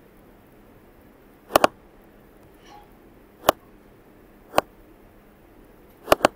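Computer mouse button clicks: a double click about a second and a half in, two single clicks about a second apart, and another double click near the end.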